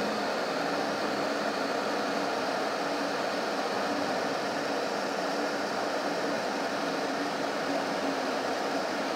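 Steady road noise inside a moving vehicle's cabin while driving across a steel suspension bridge: tyres on the textured bridge deck and the engine running, an even hiss with a faint low hum.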